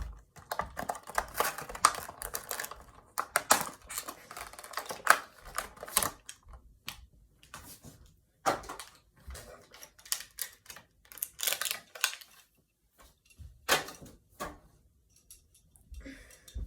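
Irregular clicks, taps and short crinkles of hard plastic being handled and pried at, as a toy car and its packaging are worked at but won't open.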